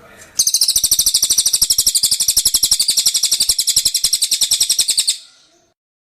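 Cililin bird singing: a loud, high-pitched rapid trill of about a dozen notes a second, lasting nearly five seconds and cutting off suddenly.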